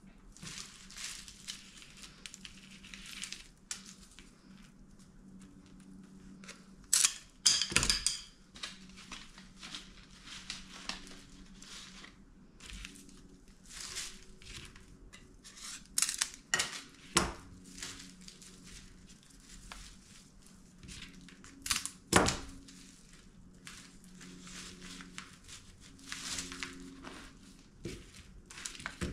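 Craft materials being handled: irregular crinkling and rustling with a few louder sharp snaps, the loudest about a quarter of the way in and again about three quarters of the way in.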